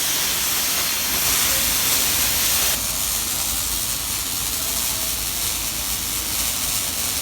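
Plasma cutter cutting steel: a loud, steady hiss that changes suddenly, losing some of its higher pitch, about three seconds in.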